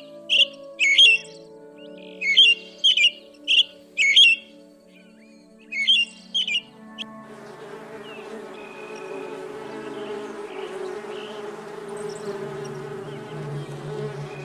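About eight short, sharp high chirps in quick clusters over the first seven seconds, then a steady buzz like flying insects for the rest, all over background music.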